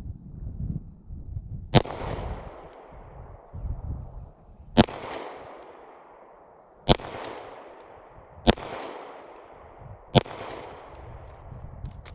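Five handgun shots fired at uneven intervals, each a sharp crack followed by a fading echo.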